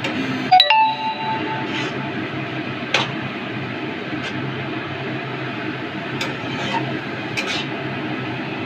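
Metal spatula stirring grated carrots frying in ghee in a stainless-steel kadai, with a steady frying hiss underneath. A short metallic ring about half a second in as the spatula knocks the pan, and a few brief scrapes against the steel later on.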